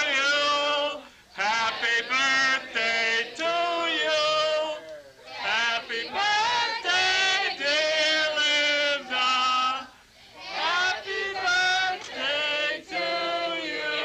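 Voices singing a melody in held, wavering notes, broken by short pauses every one to three seconds.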